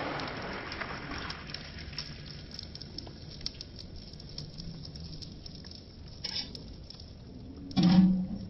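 Beaten egg with chopped onion poured into hot oil in an aluminium wok, hissing loudest as it first hits the pan, then settling into a quieter, steady sizzle with small crackles and spits. A short, louder knock near the end.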